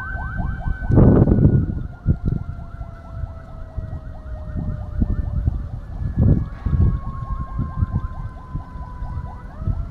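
A siren wailing in a fast, repeating warble whose overall pitch sinks slowly, then jumps back up near the end. Irregular low rumbles run under it, the loudest about a second in.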